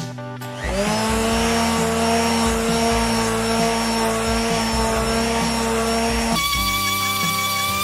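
Electric palm sander starting up about a second in and running with a steady motor whine as its pad sands a wooden cutting board, then stopping abruptly near the end.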